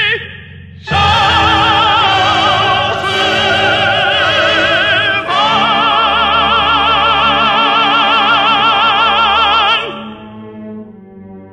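Chinese art song sung in operatic style: a solo voice holds long notes with wide vibrato over sustained accompaniment. The final held note stops about ten seconds in, leaving the accompaniment fading quietly.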